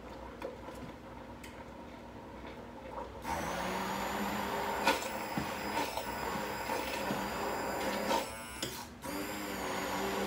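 Immersion blender switched on about three seconds in, its motor whirring steadily as it purees boiled peeled tomatoes in a stock pot. About two-thirds through it briefly slows and then spins back up.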